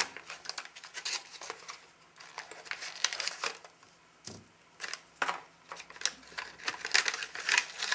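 Crinkling and crackling of an MRE cookie pouch being opened and the cookie worked out of it, in irregular bursts with a couple of short lulls.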